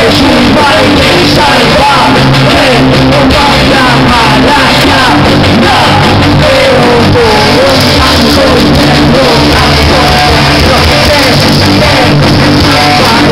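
Loud live rock music: a band with drums, bass and guitar playing behind a singer.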